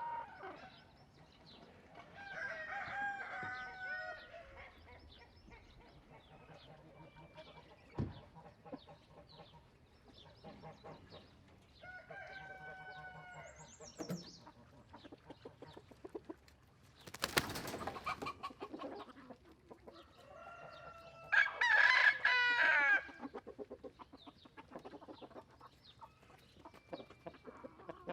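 Roosters crowing three times, the last and loudest crow near the end, with chickens clucking in between. About two-thirds of the way through comes a second-long rushing noise.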